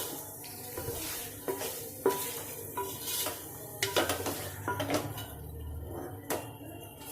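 A spoon stirring and scraping through chicken and tomato masala in a cooking pot, with several knocks of the spoon against the pot and a light sizzle underneath.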